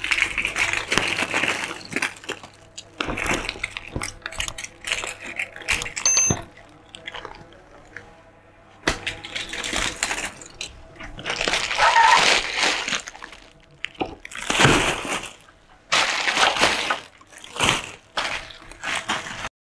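Crinkling and rustling of clear plastic bags as hands rummage through a box of bagged small toys, with light clicks of the hard plastic toys knocking together. The sound comes in bursts with short pauses between them.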